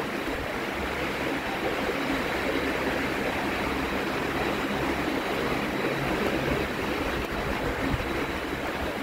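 Steady rumbling background noise of a covered railway station platform, with a faint steady high whine.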